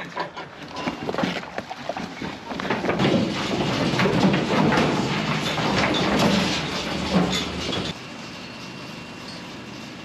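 Sheep hooves clattering and trampling on the floor of a livestock truck's stock crate as a mob of lambs runs out, a dense rattling rumble after scattered knocks in the first few seconds. It cuts off suddenly about eight seconds in, leaving a steady low outdoor noise.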